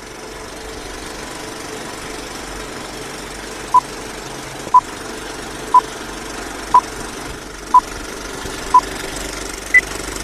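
Old-film countdown leader effect: a film projector clattering steadily, with a short beep once a second. Six beeps sound at one pitch, then a seventh, higher beep comes near the end.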